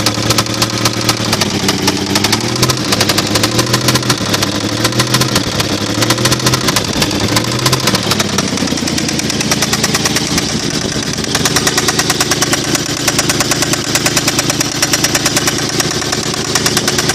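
1995 Toyota 4Runner's 3.0-litre V6 running with a rapid, steady knocking. This is rod knock: a connecting rod loose on the crankshaft. The engine speed wavers in the first half and holds steadier from about halfway.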